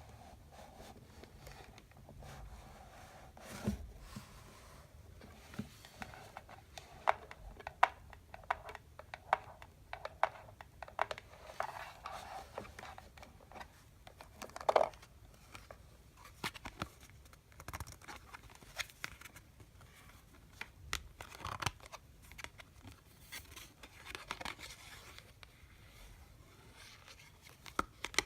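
Candy boxes being tapped by hand: irregular taps and clicks, some in quick clusters, with light crinkling and scratching of the packaging.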